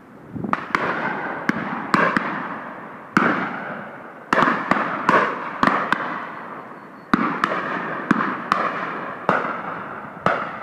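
Rapid, irregular shotgun fire from several guns at driven game birds: about twenty sharp shots, some in quick pairs and clusters, each trailing off in an echo.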